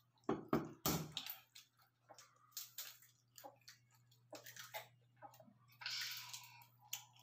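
Balut (boiled duck egg) shell being cracked and picked off by fingertips: a few knocks about half a second to a second in, then scattered small clicks and crackles of breaking shell. A steady low hum runs underneath.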